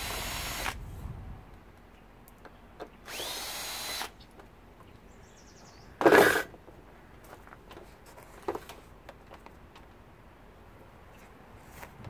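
Power drill-driver backing out the screws that hold a dishwasher's plastic panel, run in two short spurts, each spinning up with a rising whine. About six seconds in comes a single loud knock, the loudest sound.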